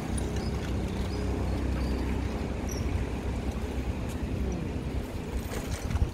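Outdoor city street noise: a steady low rumble of traffic.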